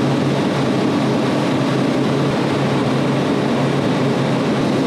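Steady drone of refrigeration machinery running in a compressor room: a constant low hum under an even rushing noise.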